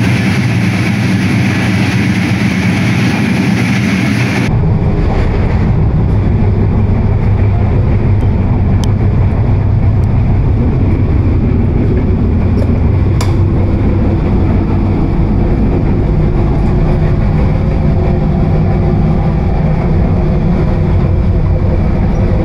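A moving intercity train heard from inside the coach: steady, loud wheel-and-rail rumble. A bright hiss rides on top for the first few seconds and drops away sharply about four and a half seconds in, leaving a deep rumble with a few faint clicks.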